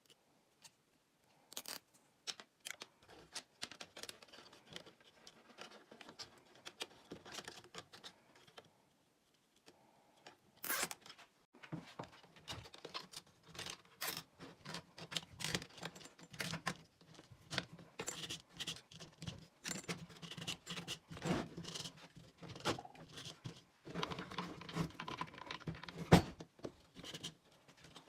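Irregular hand-work noises of parts and tools being handled: scratching, rustling and small clicks and knocks, with no motor running. The noises pause briefly near the start and again about a third of the way through, then come thicker for the rest.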